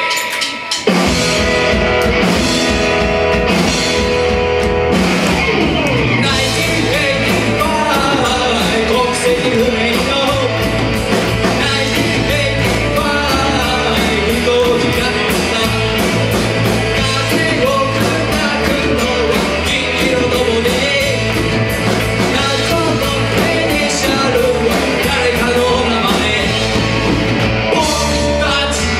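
Live punk rock band playing: electric guitars, bass and drums with a male lead vocal. The full band kicks in about a second in.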